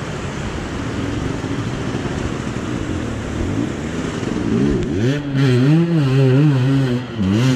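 Fast mountain river rushing over rocks. From about five seconds in, an enduro motorcycle's engine is heard over the water, revved up and down for a couple of seconds.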